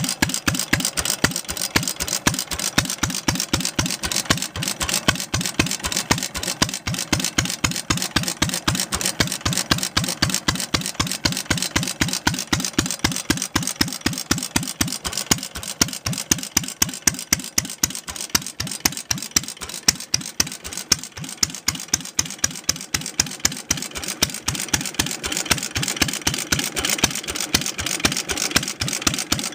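Sundial 2 HP single-cylinder stationary engine running steadily, with an even, sharp exhaust beat about five times a second. Its exhaust is loud; the original muffler is in rough condition and due for replacement.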